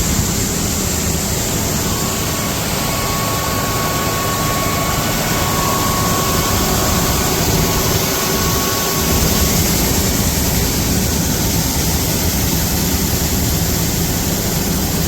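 Heavy farm machinery engine running loudly and steadily, with a low drone and a hiss, with no change in pace.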